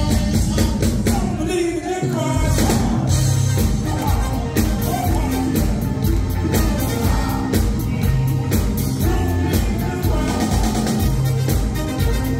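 Live band playing an upbeat rock-and-roll number with a steady drum beat and a singing voice over it; the bass drops out briefly about two seconds in.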